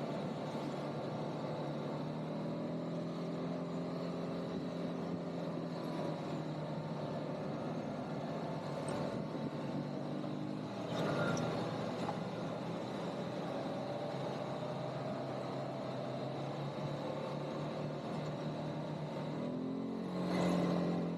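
ATV (quad bike) engine running under way, its note shifting with the throttle. It swells louder with rising pitch about eleven seconds in and again near the end, over a steady hiss.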